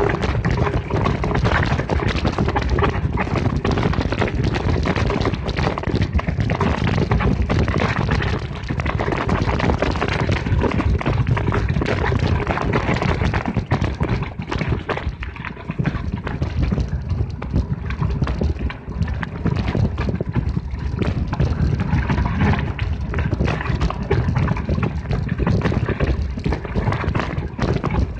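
Mountain bike rattling and clattering over a rocky dirt trail, its tyres running on loose stones: a dense, continuous run of small knocks over a low rumble, easing a little in the middle.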